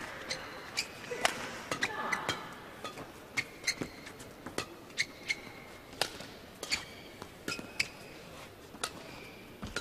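Badminton rally: sharp racket hits on the shuttlecock come roughly every second. Brief shoe squeaks on the court floor come between them.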